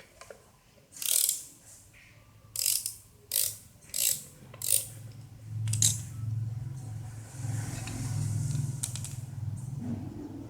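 A ratchet wrench worked in about six short strokes, loosening the bolts of a tractor clutch assembly that is held under spring pressure, followed by a low steady hum for the last few seconds.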